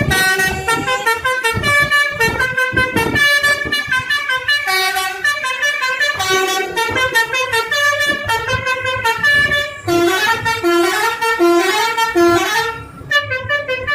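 Telolet basuri multi-tone bus horn playing a fast melody of short, stepped horn notes, with four repeated low notes about ten seconds in and a brief break just before the end.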